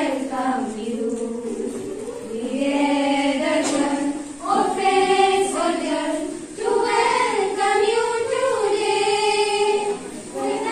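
A small group of young women singing together as a choir into a microphone, in sung phrases of held notes with short breaths between them about four and six and a half seconds in.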